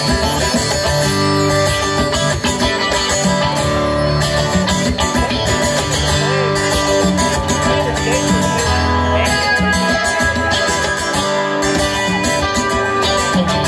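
Live band playing an instrumental passage with no vocals: acoustic guitar and electric guitar over drums.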